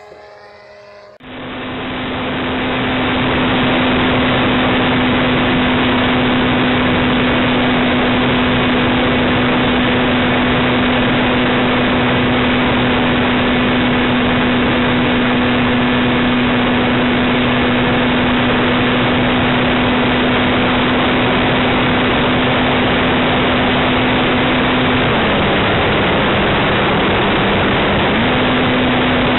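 Model aircraft's motor and propeller, heard first from the ground with its pitch falling as it passes. Then, from on board the airframe, it runs as a steady drone under loud rushing air. Near the end the drone drops lower in pitch for about three seconds, then comes back up.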